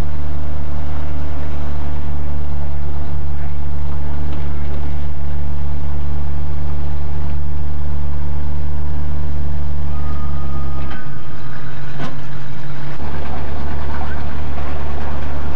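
Old pickup truck engine idling with a steady low drone, which drops briefly about eleven seconds in along with a couple of clicks.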